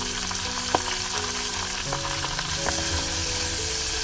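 Curry leaves and rampe (pandan leaves) sizzling in hot coconut oil in a clay pot, with a steady hiss and a few sharp pops.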